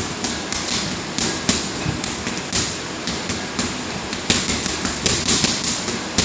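Boxing gloves striking a small double-end bag in quick punches, a string of sharp slaps about three a second that come faster and harder in the second half.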